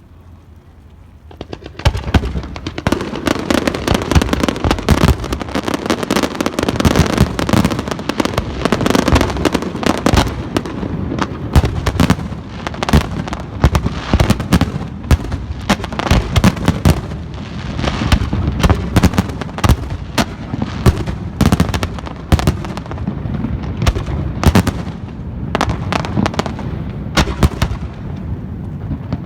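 Fireworks display: after a quiet second or so, a rapid, continuous barrage of bangs, booms and crackling shells, many overlapping each second.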